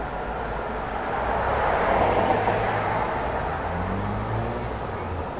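Road traffic: a vehicle passing, its rushing noise swelling to a peak about two seconds in and then fading, over a steady low hum.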